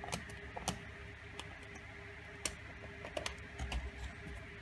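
Scattered light clicks and taps of a small metal hand tool against a rubber-covered plate as it is marked out, over a faint steady hum.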